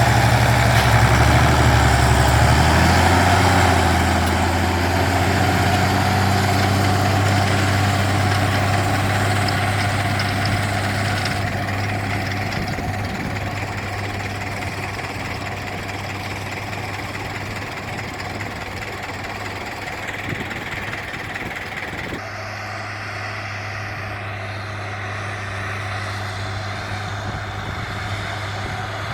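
Zetor 16245 tractor's six-cylinder diesel engine running under load while pulling a disc harrow. Its pitch rises over the first few seconds, then holds steady as the sound slowly gets quieter.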